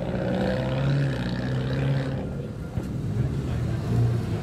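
Engines and exhausts of lowered, modified cars running at low revs as they drive slowly off one after another, giving a steady low drone.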